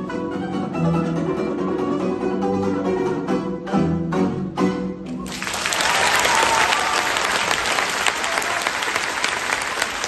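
Balalaika ensemble with classical guitar and contrabass balalaika playing the closing bars of a piece, ending on a few hard strummed chords; about five seconds in, the audience breaks into steady applause.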